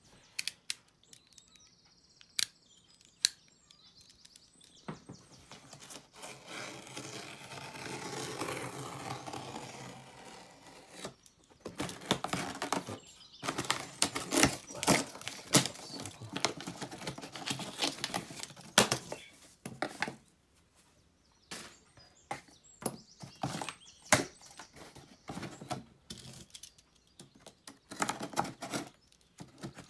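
Cardboard shipping box being cut open with a box cutter: the blade scraping and slicing through packing tape and cardboard, with crackling, rustling and knocks as the flaps are handled. A longer scraping stretch comes about a quarter of the way in, the densest crackling and knocking in the middle, and scattered knocks near the end.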